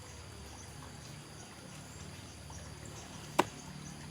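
Faint steady low hum and hiss, broken by one sharp click about three and a half seconds in.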